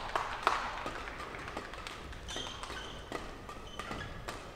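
Scattered claps and taps in a sports hall after a badminton point, with a brief high squeak of court shoes on the floor about two and a half seconds in.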